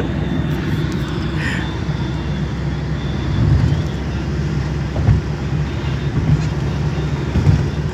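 A car driving on the open road, heard from inside the cabin: a steady low rumble of engine and tyre noise that swells now and then.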